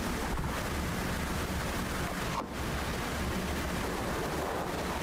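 Steady rushing noise, like hiss or static, with a brief dip about two and a half seconds in.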